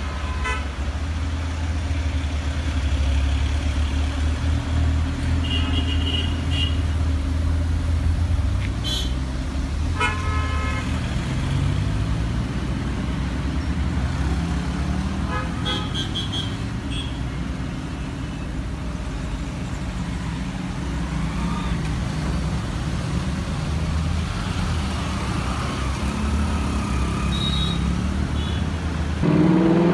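City traffic with a steady low engine idle and car horns honking several times, short toots and a longer honk about ten seconds in. Near the end an engine revs up sharply.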